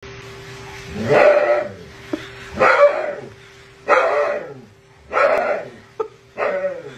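Siberian husky giving five drawn-out, falling calls about a second and a half apart: the dramatic protest vocalising of a husky held still for grooming.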